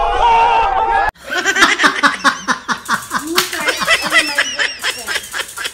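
A crowd of young men shouting for about a second, cut off abruptly, then a long run of rapid, repeated laughter.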